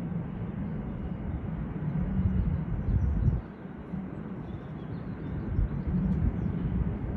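Low rumble of a distant Class 66 diesel freight locomotive's two-stroke V12 engine running, dipping briefly about three and a half seconds in.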